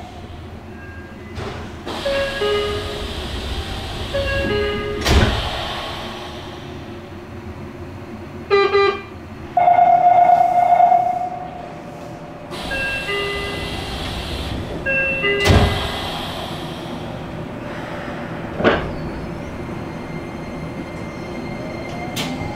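Inside a Nagoya Subway N3000 train standing at a station: two-note door chimes ring several times, there are two loud thumps of the doors, and a steady signal tone sounds for about two seconds mid-way. Near the end the Toyo IGBT-VVVF inverter starts a rising whine as the train begins to pull away.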